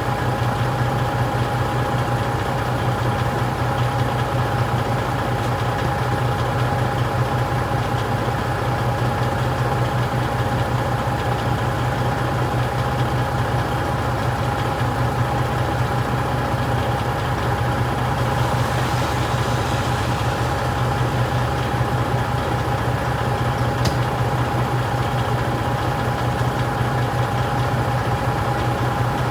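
Delivery truck's engine running steadily at a low, even speed, with a constant hum.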